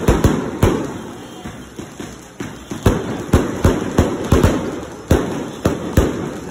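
Fireworks going off: a run of sharp bangs at uneven intervals, about two a second, each with a short ringing tail.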